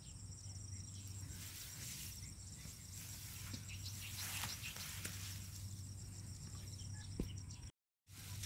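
Steady high-pitched insect trilling, with soft rustling as rice stalks brush past the phone. The sound cuts out for a moment near the end.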